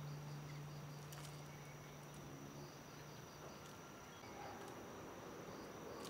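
Faint insects: a steady high buzz with rapid pulsed chirping, several pulses a second. A low held musical note fades out during the first half.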